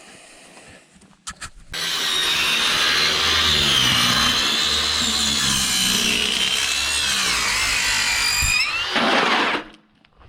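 Power saw cutting across a corrugated metal roofing panel, a loud shrieking cut with squealing tones that shift in pitch. It starts about two seconds in and stops suddenly near the end.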